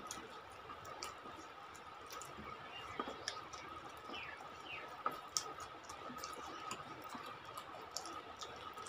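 Faint eating sounds of people chewing rice and curry eaten by hand: scattered small wet clicks and lip smacks, over a steady faint high-pitched hum.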